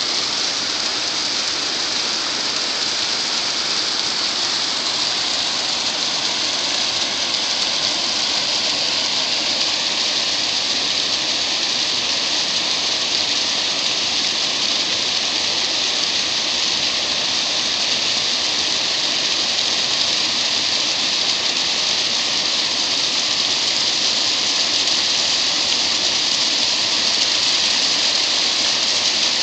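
Steady rush of water spilling over a low dam across a river.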